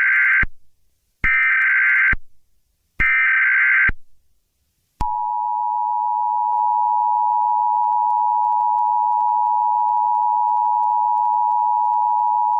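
Emergency Alert System alert tones: three short data bursts of the SAME header, evenly spaced, followed about five seconds in by the steady two-tone attention signal (853 and 960 Hz), which holds without a break.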